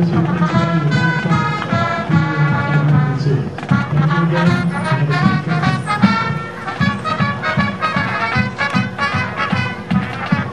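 Background music led by brass, trumpets and trombones, with a steady beat.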